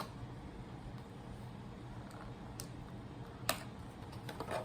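A few scattered sharp clicks and taps of small plastic pieces being handled, the loudest about three and a half seconds in and a quick cluster near the end, over a faint steady low hum.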